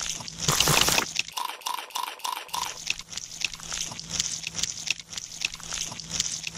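Stop-motion foley of wet squishing and crackly clicking as clay eels slither over mud, with a louder squelch just before a second in. A run of about six short high pips follows, over a faint steady hum.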